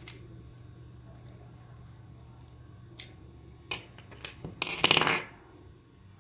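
A few sharp, separate clicks, then a dense clattering rattle of under a second, the loudest sound, about two-thirds of the way in.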